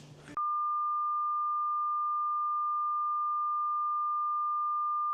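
A single steady electronic beep, one pure tone held at the same pitch and level for about five seconds. It starts abruptly just after the beginning and cuts off suddenly.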